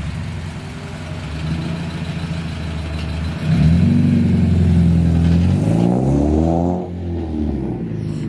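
Car engine idling, then getting louder about three and a half seconds in and revving up with a rising pitch before dropping back near the seven-second mark.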